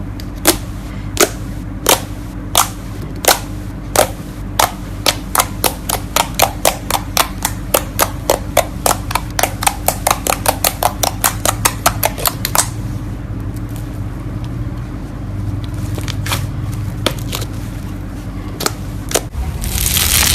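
A series of sharp clicking pops, slow at first and then quickening to about four or five a second, which stops about twelve seconds in. A few more pops follow, and a short crunching burst comes near the end, all over a steady low hum.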